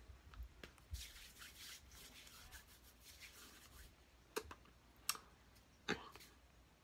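Faint rubbing and brushing of hands and clothing as a person signs with their hands, with three sharp taps in the second half.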